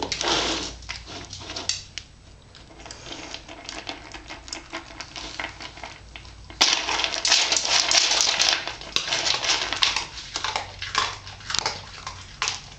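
Dry dog kibble clicking and rattling in a plastic food bowl, a dense run of clatter that turns much louder a little past the middle as the dog eats from the bowl.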